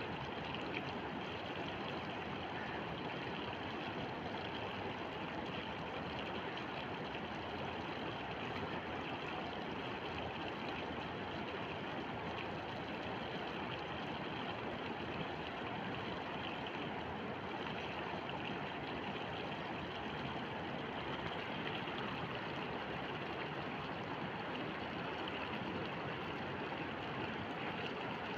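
Shallow river running over stones and gravel, a steady rushing of water.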